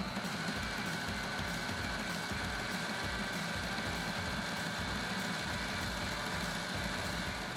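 Sewing machine motor spinning up with a rising whine, then running at a steady speed with a fast, even rattle as it stitches the sailcloth.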